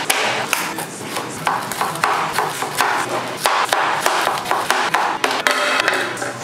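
Kitchen knife slicing a pineapple on a plastic cutting board, the blade knocking on the board about twice a second at an uneven pace.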